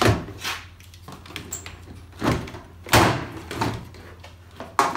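The plastic front grille of a Ford Focus mk2 being forced forward and pulled off, giving a series of sudden knocks and clunks as it comes loose.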